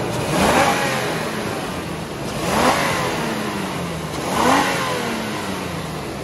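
Stock 2009 Toyota Tacoma 4.0-litre V6 on its factory intake, free-revved in three throttle blips about two seconds apart. Each rises quickly and winds back down toward idle.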